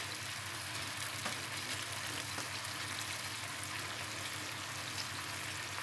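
Cornflour-thickened Manchurian gravy bubbling in a wok: a steady sizzling hiss, with a few faint taps.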